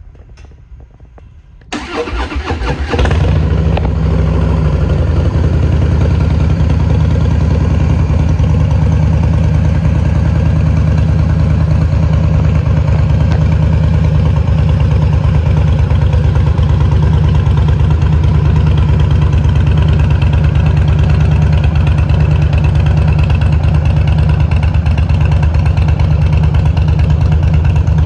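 2015 Harley-Davidson Fat Boy's V-twin engine started through Vance & Hines performance pipes without a catalytic converter: a short burst of starter cranking about two seconds in, then it catches and settles into a loud, steady idle with a deep rumble.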